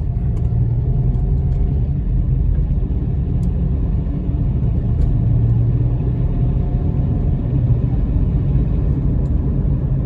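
Car running under firm acceleration, heard from inside the cabin: a steady low engine and road rumble with a faint whine from the ZF 4HP18 automatic transmission as it shifts from second to third. The squeal appears only when accelerating harder, and the owner suspects the valve body or the clutch packs.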